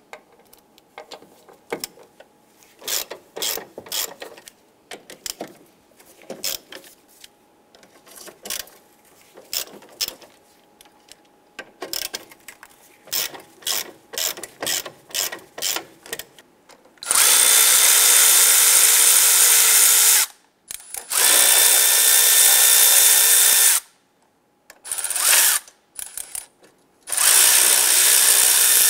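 Hand ratchet clicking in short bursts as a 13 mm battery-tray bolt is worked loose, then a power tool whirring in steady runs of about three seconds, three times with a short burst between, spinning the loosened bolt out.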